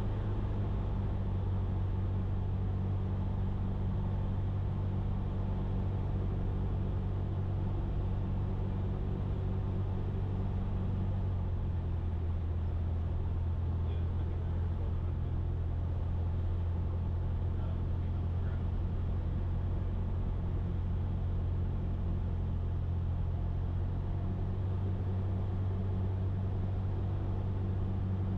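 Cessna 172's piston engine and propeller droning steadily in flight, an even low hum with no change in power.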